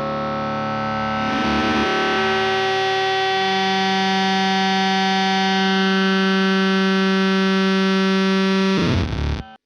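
Electric guitar played through an Earthquaker Devices Bit Commander octave-synth fuzz pedal into a Vox AC30 amp: long sustained, heavily distorted notes with a thick synth-like buzz. The notes change a couple of times in the first few seconds, then one low note is held and cut off abruptly near the end.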